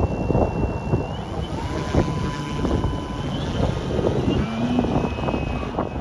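Wind buffeting the microphone, over the thin whine of a radio-controlled Extra 300 aerobatic model plane's motor and propeller, which holds steady and glides up in pitch a few times.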